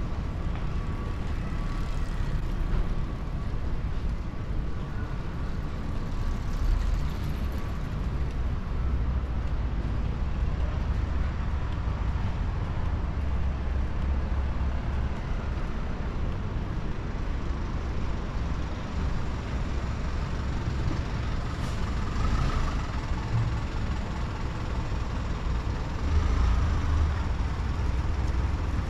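City road traffic: a steady low rumble of passing vehicles, swelling briefly as louder ones go by, the strongest near the end.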